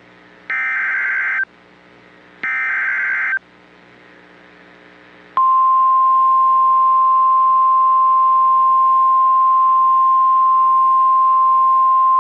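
NOAA Weather Radio emergency alert signal: the last two of the three short, warbling SAME data bursts that make up the alert header, each about a second long, then about five seconds in the steady 1050 Hz warning alarm tone starts and holds. The sequence marks the start of a new warning broadcast, here a flash flood warning.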